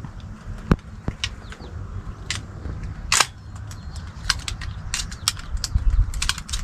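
Scattered sharp clicks and crunches over a steady low wind rumble on the microphone. The loudest crack comes about three seconds in, and a quick cluster of clicks comes near the end.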